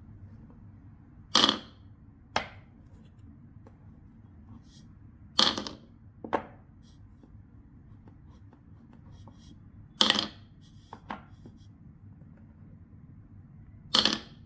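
Painted wooden balls dropped one at a time into a wooden bowl among other balls: four sharp clacks, each followed about a second later by a softer knock.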